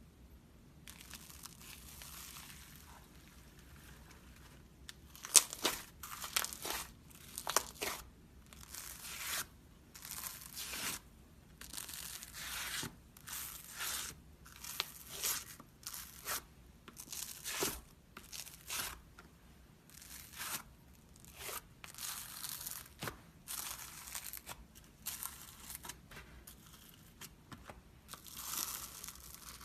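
Slime being squished and stretched by hand, crackling and popping in short repeated bursts about once a second, with a few sharper pops near the start.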